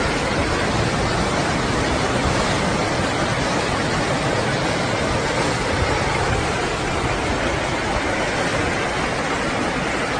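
Fast-flowing floodwater rushing through a street, a steady, unbroken noise of moving water.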